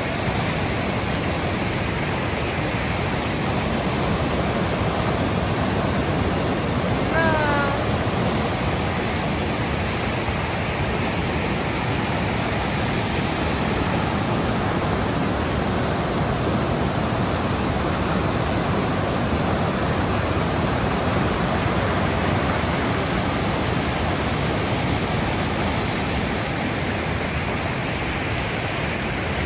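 Shallow creek rushing over rock ledges and small cascades: a steady, loud rush of water. A brief pitched sound cuts through about seven seconds in.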